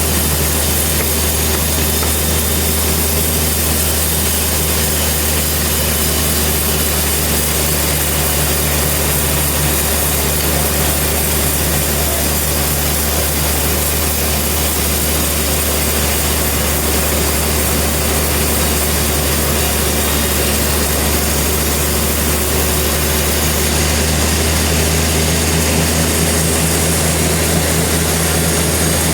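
Sawmill running steadily: a constant low engine drone under a wide hiss, shifting slightly in pitch and getting a little louder about 24 seconds in.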